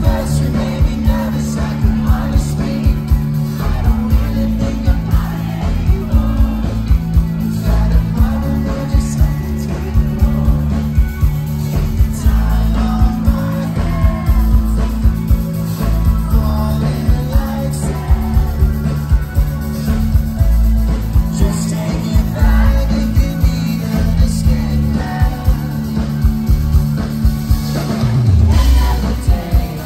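Live indie rock band playing: electric guitars, keyboards, bass and drums with a steady beat about twice a second, and a lead vocal. The music grows louder near the end, with a bass slide down.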